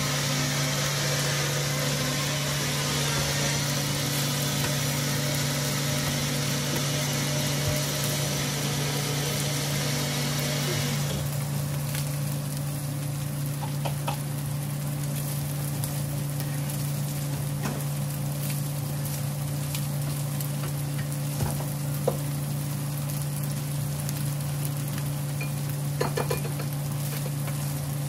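Food frying on a hot comal, a dense sizzle that thins out sharply about eleven seconds in, over a steady low hum. A few light clicks of a utensil come in the second half.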